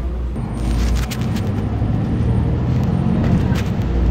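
Solaris Urbino 18 articulated city bus heard from inside the passenger cabin: a steady engine and road rumble that grows a little louder about half a second in, with scattered rattles and clicks from the bus interior.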